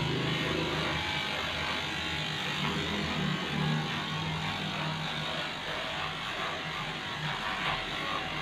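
Electric dog grooming clipper running steadily as its blade shaves through a matted coat.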